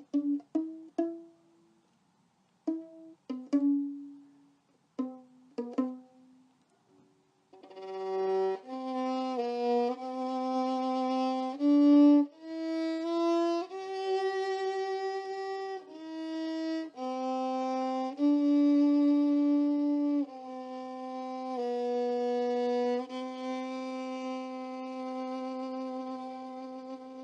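Music: a few sparse plucked string notes, then from about seven seconds in a slow bowed violin melody with long held notes.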